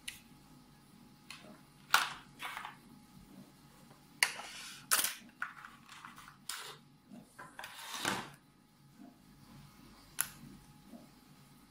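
Sharp plastic clicks and rustling handling noise from a Kemei KM-600 hair clipper being turned in the hands and having its cutting head worked on; the clipper's motor is not running. There are about five distinct clicks, with the loudest near the start and around the middle.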